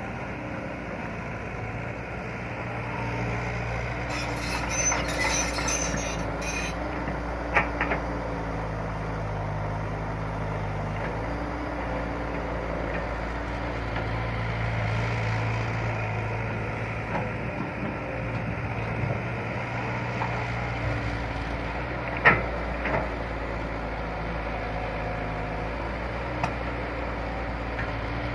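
Excavator's diesel engine running steadily, its low hum shifting in pitch as the load changes. A short hiss comes about four seconds in, and there are sharp metallic clanks about a quarter of the way through and, louder, about three quarters through.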